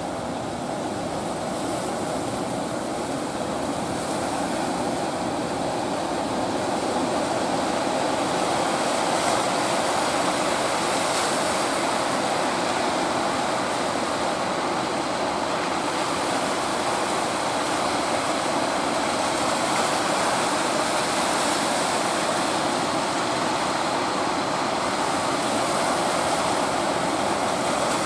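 Steady rushing of surf and waves at an estuary mouth, with a faint steady hum underneath.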